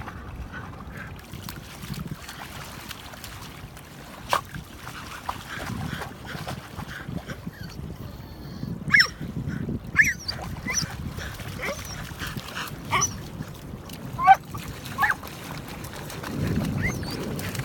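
A dog whining and yipping in short, high calls that bend in pitch, most of them bunched together from about nine seconds in, over a low rumble of wind or water.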